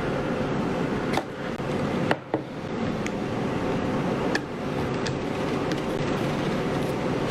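Steady background rumble with a few sharp clicks and taps of a metal pry tool against the iPhone X's frame as it cuts through the screen adhesive.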